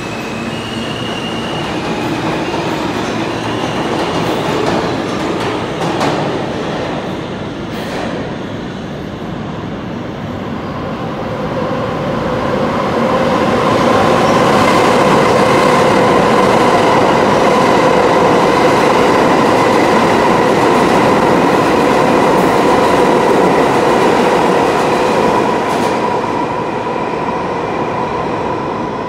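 New York subway train (R160-type cars) running through an underground station. Its rumble swells to its loudest about halfway in and eases near the end, with a steady whine running through it and a couple of wheel knocks early on.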